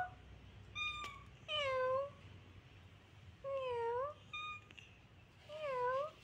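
Domestic cat meowing repeatedly: three drawn-out meows, each dipping then rising in pitch, with two short, higher calls in between.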